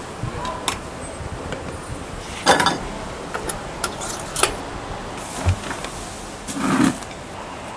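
Scattered knocks and clatters from work at a food stall, about six over several seconds with the one at about two and a half seconds the loudest, over a steady background noise.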